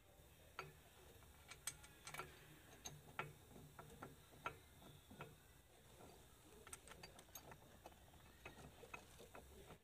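Faint, irregular light clicks and taps of metal on metal: a small screw and a steel back plate handled against a lathe chuck.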